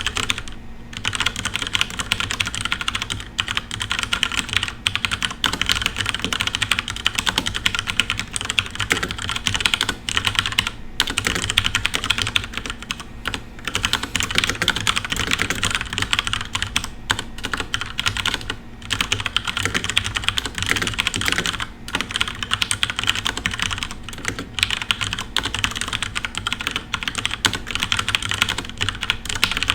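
Continuous fast typing on a FILCO Majestouch Ninja tenkeyless mechanical keyboard with brown switches: a dense run of key clacks, broken by brief pauses every few seconds.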